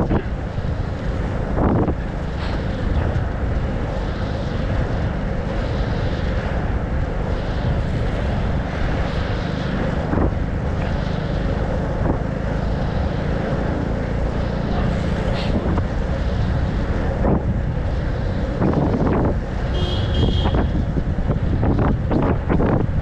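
Wind rushing over the microphone of an inline speed skater moving at racing speed, over the steady rolling of inline skate wheels on asphalt, with a few brief knocks.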